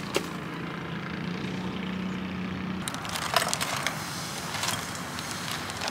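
Plastic bag crinkling as food is tipped from it into a frying pan, in short crackly bouts from about three seconds in, over a steady low hum that stops just before.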